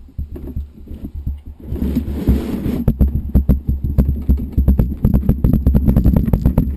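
Handling noise from hands knotting a kite bar's elastic safety-release line on a tabletop next to the microphone: a run of irregular small knocks and rubbing over a steady low rumble, with a brief scraping hiss about two seconds in.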